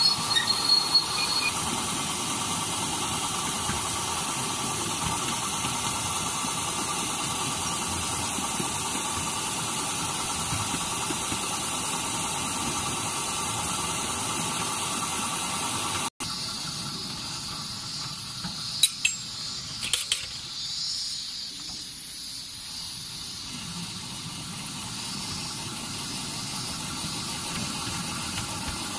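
Ride-on miniature park train running along its narrow track: a steady rolling and mechanical noise. The sound drops out for an instant about halfway, comes back quieter, and two sharp clicks follow a few seconds later.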